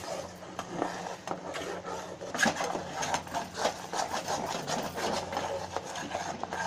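Flat steel spatula scraping and stirring a thick, ghee-laden gram-flour and sugar mixture in a steel pan, in irregular strokes, over a low steady hum.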